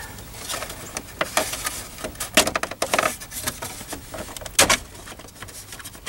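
Hard plastic upper steering-column shroud of a 1996 Chevrolet Suburban being forced out from under the steering wheel edge: a run of irregular clicks, creaks and sharp cracks, the loudest a little past halfway. The cracking sounds like the plastic is breaking, though the damage is less than it sounds.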